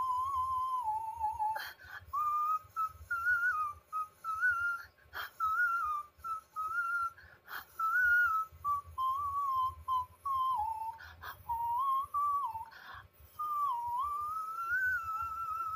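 A man singing a wordless melody in the whistle register: a thin, pure, very high tone that steps and slides up and down in pitch, broken by brief pauses.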